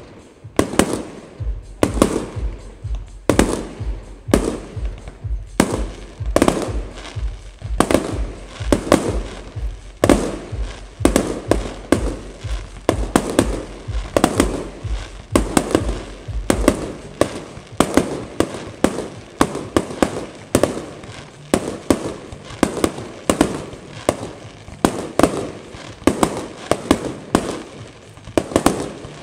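Fireworks display: a continuous barrage of firework bangs and crackles, coming faster and denser in the second half. A steady low thumping pulse runs under the first half and stops just after the middle.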